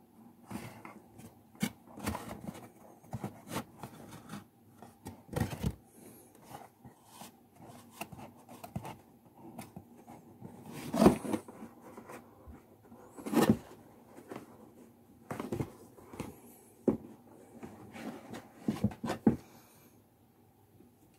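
Stiff card of a 3D paper mask being handled and pressed from inside: irregular rustling, crinkling and tapping of paper, with two louder bumps about eleven and thirteen seconds in.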